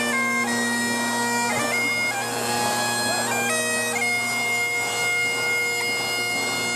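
Highland bagpipes playing a tune: steady drones sound under a chanter melody that steps between held notes.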